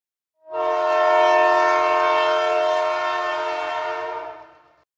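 Train horn sounding one long steady blast, starting suddenly about half a second in and fading out near the end, about four seconds in all.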